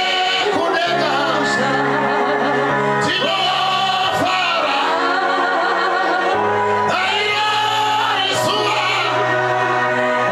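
A man leading a Shona gospel song through a microphone and PA, his voice gliding between notes over held low accompanying notes.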